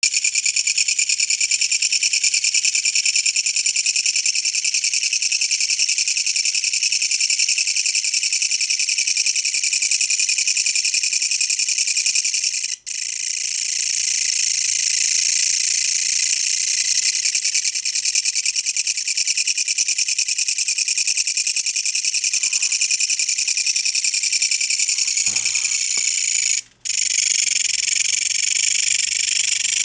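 Kutsuwamushi katydid (Mecopoda niponensis) singing up close: a loud, rapid, continuous high buzzing trill that breaks off briefly twice.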